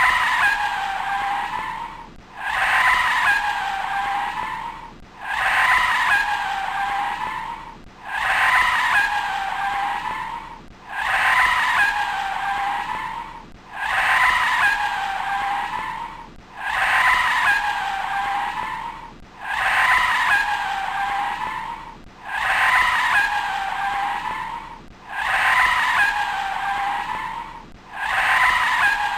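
A short car clip played in a loop, the same segment repeating about every three seconds. Each time a high, screeching car sound starts suddenly, holds, then dips in pitch as it fades.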